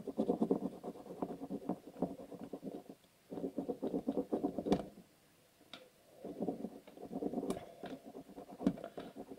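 Pen scribbling rapidly back and forth on notebook paper laid over a coin, rubbing up the coin's face: quick scratchy strokes in three spells, pausing briefly about three seconds in and again around five seconds.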